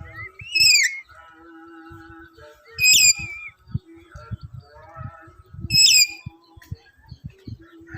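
Black-capped lory giving three loud, shrill calls about every three seconds, each about half a second long and bending in pitch. Softer chirps and whistled tones sound between them.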